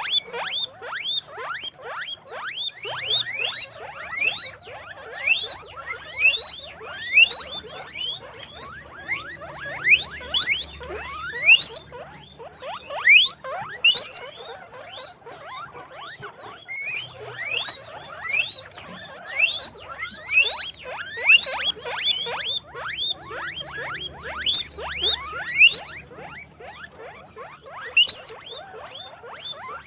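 Guinea pigs squeaking: a steady stream of short, rising squeaks, several a second and often overlapping, over a faint steady high whine.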